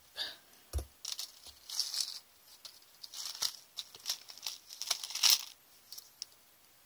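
Thin craft wire being wrapped by hand around a wire-frame jewelry piece: irregular scratchy rasps and small clicks as the wire is pulled through and tightened, with one low knock about a second in, stopping shortly before the end.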